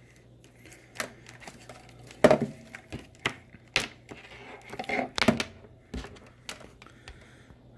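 Scattered clicks, knocks and rustling of a game console's adapters and cords being handled, about half a dozen sharp taps spread irregularly.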